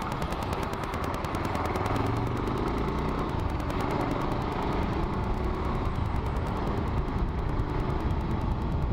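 Bajaj Pulsar 220's single-cylinder engine running under way, its exhaust beat a fast, even pulsing, growing a little louder after the first second or two.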